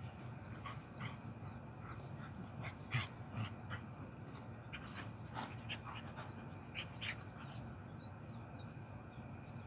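Two dogs play-wrestling on grass: faint scuffling and short soft dog noises, a scattering of brief sounds that die away about seven seconds in.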